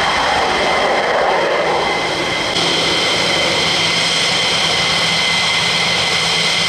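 McDonnell Douglas F-15E Strike Eagle's two jet engines running at low taxi power: a steady high whine of several tones over a loud broad rush.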